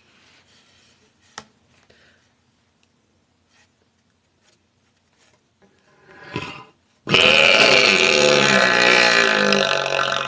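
A few quiet seconds with faint clicks. Then, about seven seconds in, a woman lets out a sudden, long, loud burp with a low, wavering pitch, still going at the end.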